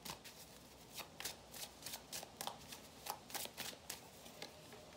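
A deck of tarot cards being shuffled by hand: a quick, irregular run of soft card flicks and taps, a few each second.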